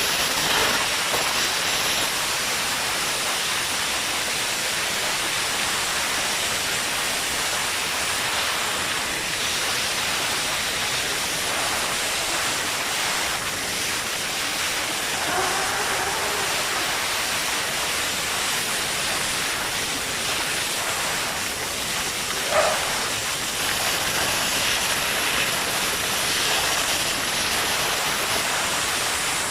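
Vacuum excavator running, a steady loud rushing hiss of suction air. One brief sharp sound about two-thirds of the way through.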